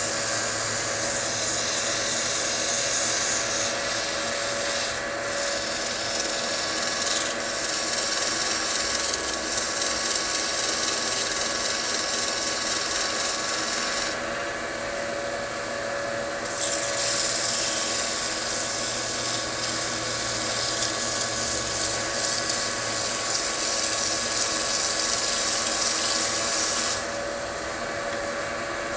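Wood lathe running with a steady motor whine while something is held against the spinning wooden bowl, adding a high rubbing hiss. The hiss drops away briefly about halfway through and again near the end, leaving the motor alone.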